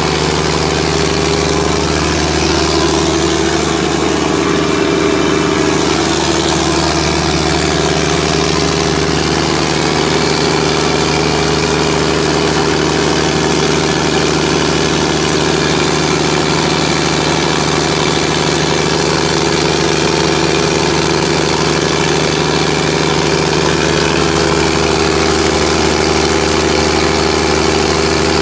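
John Deere diesel engine of a 180 kVA generator set running steadily, a loud, even engine drone that holds one pitch with no change in speed.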